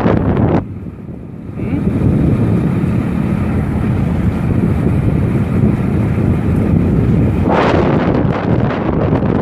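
Wind buffeting the microphone in gusts, strongest at the start and again near the end, over a steady low hum of a running engine.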